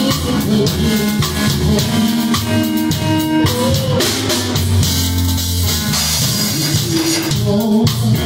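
Live band playing a gospel song: a drum kit with kick drum, snare and cymbals over electric keyboard chords.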